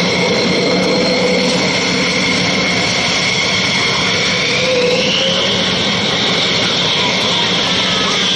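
Jet aircraft engines running loud and steady, with a higher whine that rises in pitch about five seconds in.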